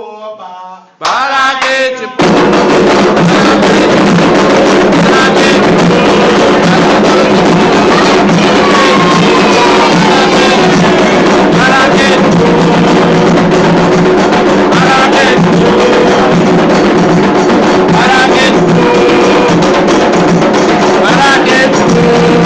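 Ritual drumming with group singing, a Candomblé chant for Xangô. A lone singing voice is heard briefly, then from about two seconds in the drums and chorus come in loud and dense.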